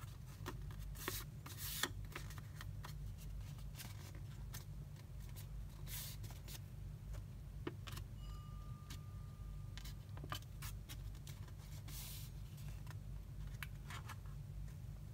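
A folded paper airplane handled and creased by hand: scattered soft paper rustles and crinkles with small clicks, over a steady low hum.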